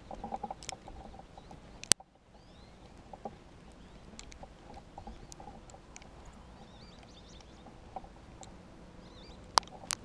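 Faint small birds chirping here and there over a quiet snowy hush, with two sharp clicks about two seconds in and near the end.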